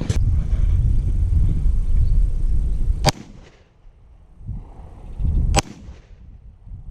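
Walther PPQ 9mm pistol shots fired at targets, one about every two and a half seconds, each a sharp crack with a short echo. A loud low rumble fills the first three seconds.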